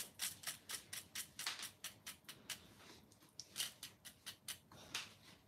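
Crackling of the crisp crust of karaage (Japanese fried chicken) as it is pressed and worked with chopsticks: a run of faint, irregular crunchy clicks.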